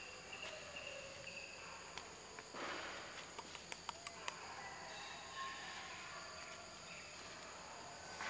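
Faint forest ambience of insects trilling steadily at a high pitch. A run of short, high repeated chirps sounds in the first second or so, and a few faint clicks come about midway.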